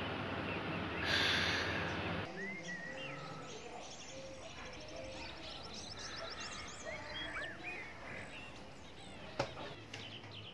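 Small birds chirping and whistling, with many short rising and falling calls and a fast run of repeated chirps. Before them, in the first two seconds, is a steady hiss with a brief rush of louder noise, and a single sharp click comes near the end.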